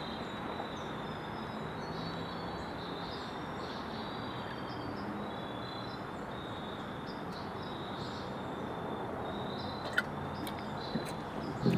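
Steady outdoor background hiss with faint, scattered high bird chirps, and a single small click about ten seconds in.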